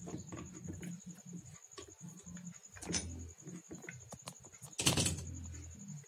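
Small metallic clicks and taps of pliers working on a Maruti steering rack's pinion housing, with a louder clatter about five seconds in as the pliers are put down on the concrete floor.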